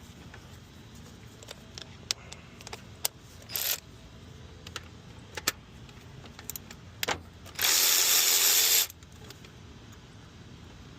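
Scattered metal clicks and clinks of a wrench and socket on the 12 mm nut at the car's starter, with a short rushing burst about three and a half seconds in and a louder one lasting about a second past the middle.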